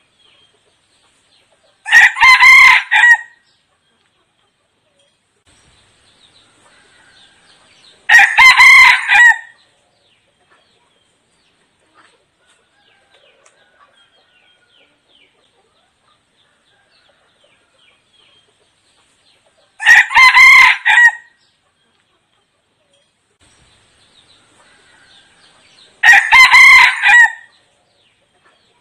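A decoy red junglefowl rooster crowing four times, each crow short, about a second and a half long and broken into a few parts. The crows come at uneven gaps of several seconds.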